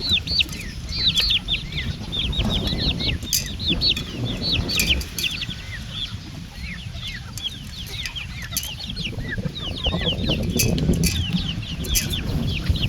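Several chicks peeping continuously: rapid, overlapping short high peeps that slur downward in pitch. A low rumble and a few sharp clicks sound underneath.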